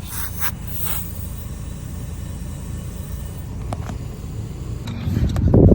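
An air hose hisses briefly into a tyre and stops, leaving a steady low rumble. About five seconds in there is a short, loud low buffet.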